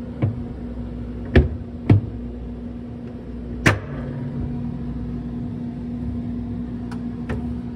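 White coated-wire freezer shelf knocking and clicking against its plastic side mounts as it is popped up and worked loose: three sharp knocks in the first four seconds and fainter clicks near the end, over a steady low hum.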